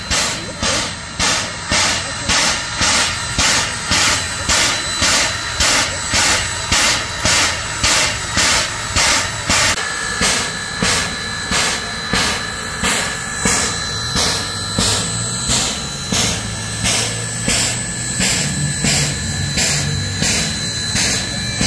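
A bell ringing steadily about twice a second as Baldwin Locomotive Works steam locomotive No. 26 rolls slowly past, with a low rumble from the locomotive growing in the second half.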